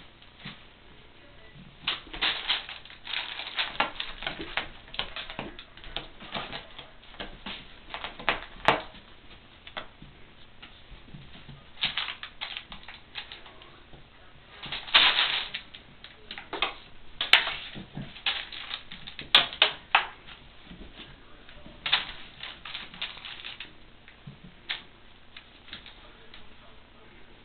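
Kittens scuffling and pouncing at play: irregular runs of scratchy rustles and clicks, with louder flurries around the middle.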